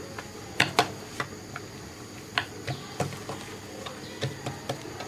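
Irregular light taps and clicks of oiled hands stretching and pressing paratha dough on a board. The two loudest come close together about half a second in.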